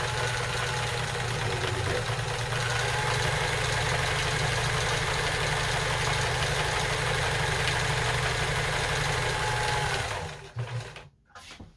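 Kenmore 158.14000 sewing machine running steadily at speed, sewing a scallop stitch at the shortest stitch length, then stopping about ten seconds in.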